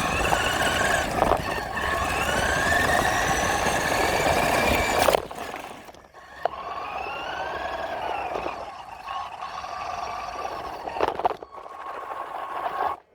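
Radio-controlled truck's motor whining as it drives, its pitch rising and falling with the throttle, over a steady hiss. The sound drops away sharply about five seconds in, picks up again, and cuts off near the end.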